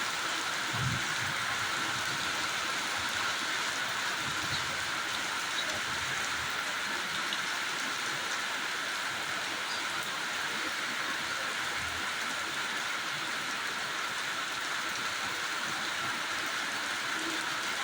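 Steady rain falling, an even hiss of drops with a few soft low thuds among it.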